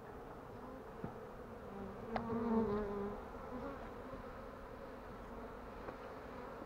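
A swarm of honey bees buzzing in the air, a steady hum that swells for about a second some two seconds in.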